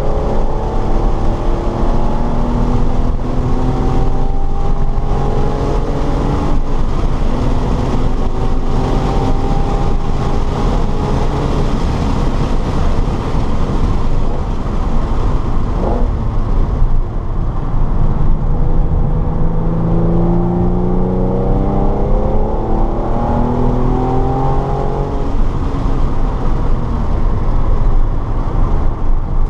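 Car engine driven hard on a track lap. It revs up through the gears again and again, its pitch climbing and dropping back at each shift, over constant wind and tyre noise.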